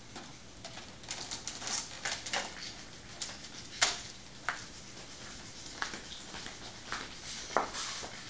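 Irregular light clicks and taps, with a few sharper knocks scattered through, about four to six of them standing out.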